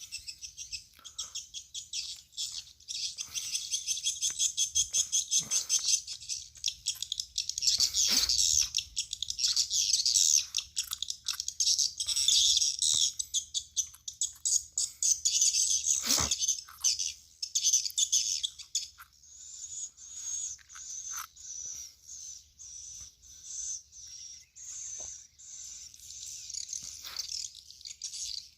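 Swiftlet calls played through a swiftlet house's tweeter speakers as a lure: dense, rapid high chirping that thins about two-thirds of the way in to one chirp roughly every second. A single knock sounds about halfway through.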